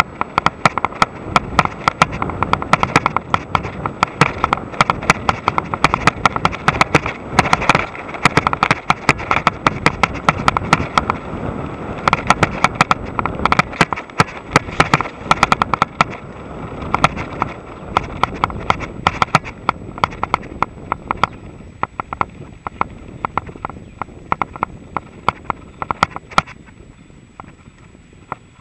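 Mongoose XC Salvo Comp full-suspension mountain bike riding fast over a bumpy dirt trail: a constant rapid clatter of sharp rattles and knocks from the bike, over tyre and wind noise. The rattling thins out and gets quieter in the last few seconds as the ground turns into a smoother dirt road.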